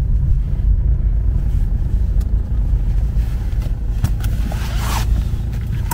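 Low rumble of a car heard from inside the cabin, with a brief rustle about four seconds in.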